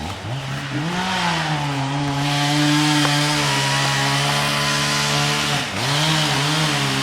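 Chainsaw engine revving up and running steadily at high speed, cutting into the trunk during a felling cut. About five and a half seconds in, the engine note dips sharply for a moment, then comes back up.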